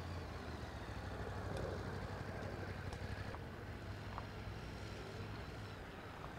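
Outdoor ambience: a faint, steady low rumble with a few soft ticks.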